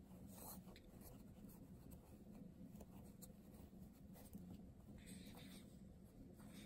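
Faint scratching and rustling as a pencil tip is pushed into the corners of a turned-out fabric mini pillow to poke the corners out.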